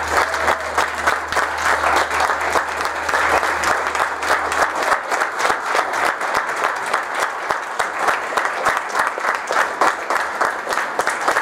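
A congregation applauding, many hands clapping steadily in a sustained ovation. A low hum under it stops about five seconds in.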